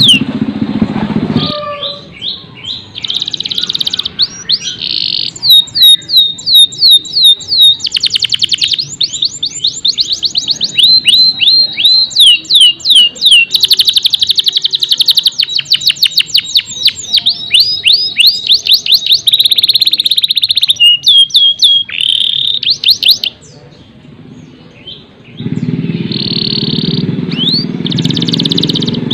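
Domestic canary singing: long runs of quickly repeated high sweeping notes and fast trills, with a short break about 23 seconds in. A low background rumble is under the song at the start and again near the end.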